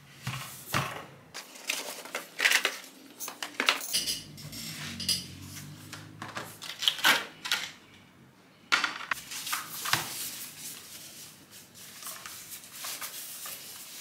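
Dishes and utensils being handled: a string of short clinks and knocks. A steady hiss sets in suddenly about nine seconds in.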